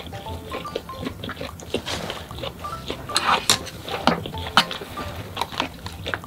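Close-miked eating: chewing and mouth sounds with sharp clicks and clinks of chopsticks and utensils, the loudest a bit past the middle, over light background music.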